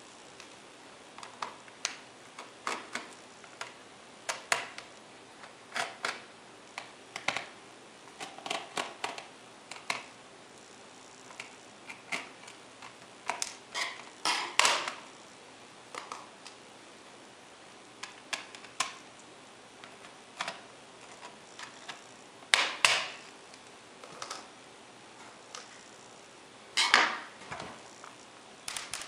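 Irregular plastic clicks and clatter from an Acer Aspire One D250 netbook being taken apart with a small screwdriver: screws worked out, a plastic cover prised off and the case handled on a table. Several louder clacks come about halfway through, a little later, and near the end.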